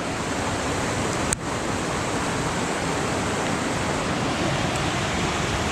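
Steady rushing noise outdoors on a snowy mountain trail, with a single sharp click a little over a second in.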